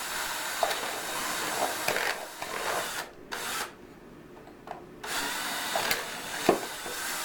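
A handheld power tool worked against a cheap plastic alarm clock's screen to test it, running for about three seconds, blipping briefly, stopping, then running again from about five seconds in. A few sharp knocks sound while it runs, the loudest about six and a half seconds in.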